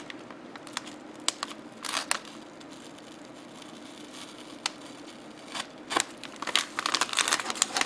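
Crinkling of a metallised anti-static bag being handled while its label is slit with a small knife: scattered crackles and clicks, a quiet stretch in the middle, and a busier run of crinkling near the end.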